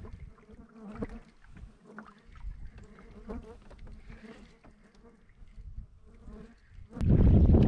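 A fly buzzing close to the microphone, a faint steady hum. Near the end a sudden loud rush of noise takes over.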